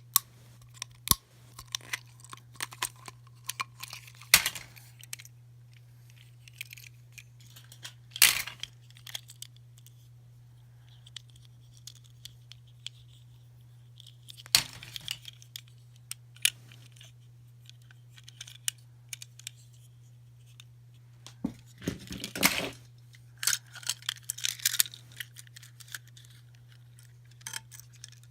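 Hands handling and unwrapping small toys: scattered clicks, taps and short tearing and rustling of wrappers, over a steady low hum.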